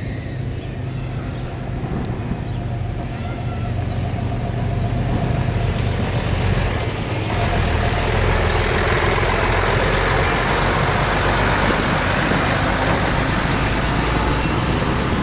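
A heavy truck approaching on the road, its engine drone and tyre noise growing steadily louder and loudest near the end.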